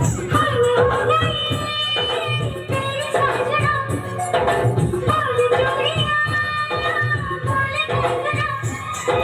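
Music: a song with singing over a steady accompaniment.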